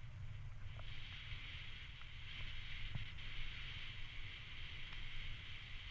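Bicycle rolling along a wet tarmac path: steady tyre hiss over a low rumble of the ride, with a few small clicks and rattles.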